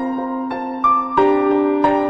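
Background music: soft piano or electric piano, with notes and chords struck at an unhurried pace over sustained bass notes.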